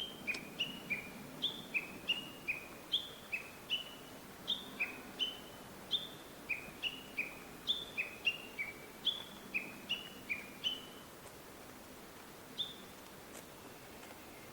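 Japanese bush warbler (uguisu) calling a long, quick run of short two-note chirps, each pair stepping from high to low, that stops about eleven seconds in, with one more note near the end.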